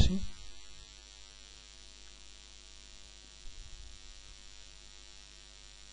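Low steady electrical mains hum on the recording line, with a faint brief noise about three and a half seconds in.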